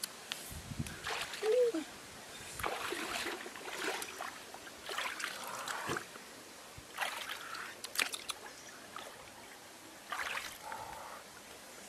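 Shallow water splashing and trickling in a series of short, irregular bursts.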